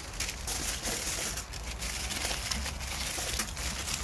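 Aluminium foil being crinkled, folded and crimped by hand into a parcel, a quick irregular run of crisp crackles.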